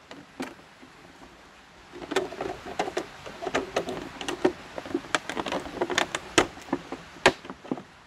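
Plastic soda bottle crackling and clicking as it is handled and its screw cap is twisted shut. An irregular run of crinkly clicks starts about two seconds in and goes on until near the end.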